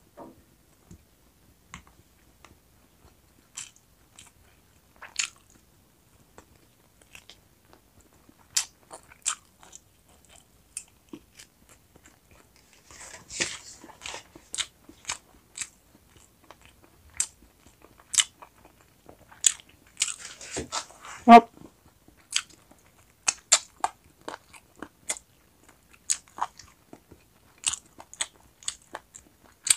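Close-miked mukbang eating of roast chicken wings and rice: scattered crisp bites, crunches and wet chewing clicks at an irregular pace. There are busier stretches of chewing a little under halfway and about two-thirds of the way in, where one brief louder sound stands out.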